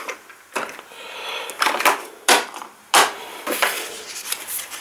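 Small cardboard boxes of e-liquid bottles being set down and shuffled on a wooden tabletop: about half a dozen sharp knocks and taps with light scraping in between.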